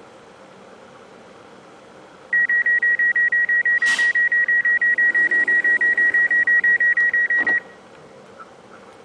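Electronic warning beeper sounding one high tone in fast pulses, about six a second, for about five seconds before cutting off abruptly.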